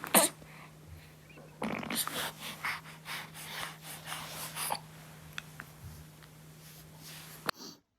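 A young baby's noisy, snuffly breaths and grunts, in a cluster of short bursts over a few seconds, over a steady low hum that cuts off abruptly near the end.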